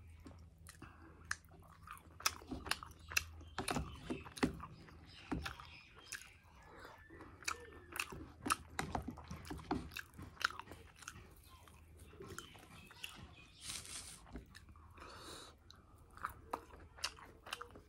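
A person chewing mouthfuls of fried suji (semolina) puri with curry close to the microphone: a run of irregular wet mouth clicks and smacks.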